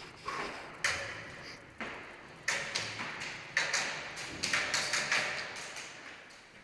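A run of sharp taps and knocks at irregular intervals, about a dozen, coming closer together after the first couple of seconds, each with a short echoing tail from the hard-walled indoor arena.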